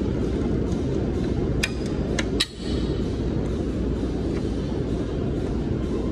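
Steady low rumbling noise, with a few sharp metallic clinks about two seconds in from a plate-loaded gym leg machine's steel parts.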